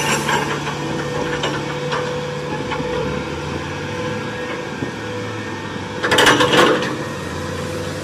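Liebherr crawler crane working a dragline bucket: its diesel engine runs steadily with a low hum and a steady whine, and a louder burst of noise comes about six seconds in.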